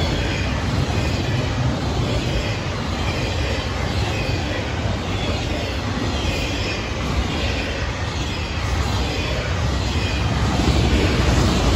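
Freight train's autorack cars rolling past: a steady rumble of steel wheels on rail, with a faint rhythmic rise and fall about once a second.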